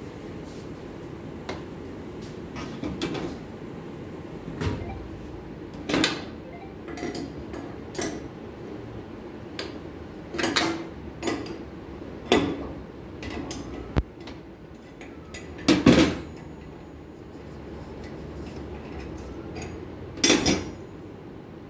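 Irregular metallic clinks and knocks, about a dozen, from hand work at a CNC router's spindle head, the loudest about three quarters of the way through. A steady hum runs underneath.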